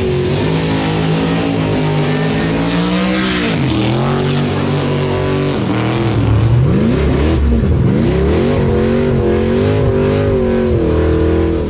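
A high-powered car engine revving hard, its pitch climbing and dropping again and again as the throttle is worked. It cuts off suddenly near the end.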